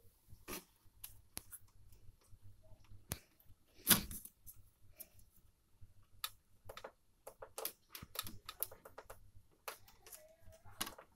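Irregular soft clicks and taps, the loudest about four seconds in and a quick run of them near the end, as TV remote buttons are pressed to turn the volume up.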